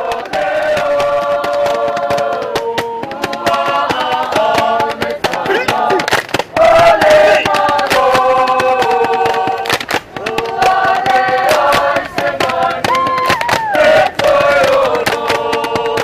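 Music: a choir singing long held chords that slide between notes, over sharp percussive hits.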